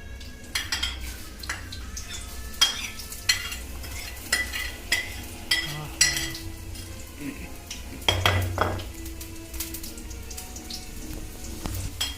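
Chopped onions sizzling in hot oil and ghee in a kadhai, with a spoon repeatedly clinking and scraping against the pan as they are stirred.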